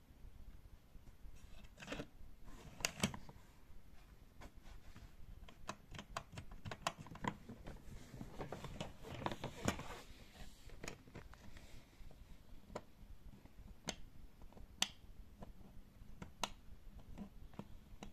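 Scattered small plastic clicks and taps as fingers work the three-dial combination lock on a hard-shell suitcase, with a few seconds of rubbing and handling noise near the middle.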